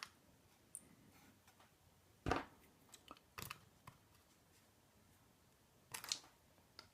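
Sparse small clicks and taps of the tiny metal pins and parts of a disassembled Schlage pin-tumbler lock cylinder being handled, with one sharper tap about a third of the way in and a short cluster of clicks near the end.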